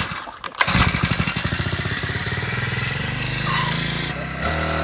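Motorized bicycle's small petrol engine revving up about a second in and then running hard at full throttle, settling to a steady pitch near the end. The bike lacks gear reduction, so the engine labours without pulling it up to speed.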